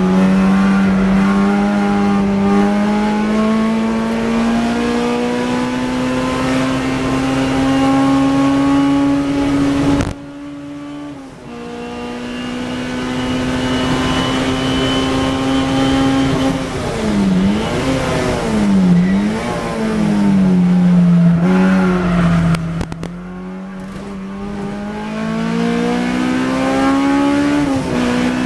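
Honda Civic EK9 race car's engine heard from inside the cabin at full throttle on track. The note climbs steadily in pitch, then drops sharply with a gear change about ten seconds in, and climbs again. In the middle the note dips and rises a few times as the car slows, then pulls up once more to another shift near the end.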